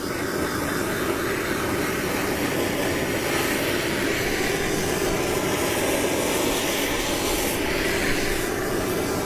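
Handheld gas blowtorch on a blue cylinder burning with a steady flame hiss, its flame played over a frozen block of Coca-Cola to melt it.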